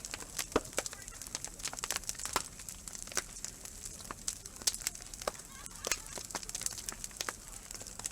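Wood bonfire crackling: irregular sharp pops and snaps over a steady hiss.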